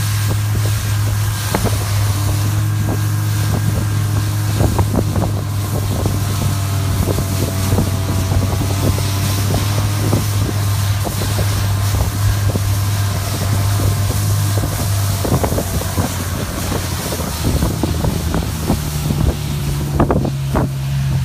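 Snowmobile engine running steadily as it travels over snow, with wind buffeting the microphone and scattered knocks and rattles from the ride. The engine note shifts a little higher about three quarters of the way through.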